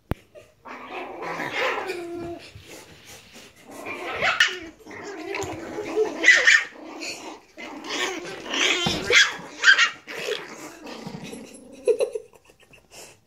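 Chihuahua puppies growling and yipping as they play-fight, in irregular bursts with several sharp high yaps along the way.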